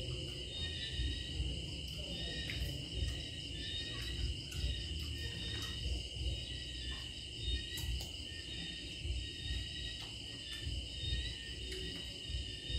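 Steady chorus of night insects such as crickets: a continuous high-pitched trilling that does not let up, with uneven low rumbling underneath and a few faint clicks.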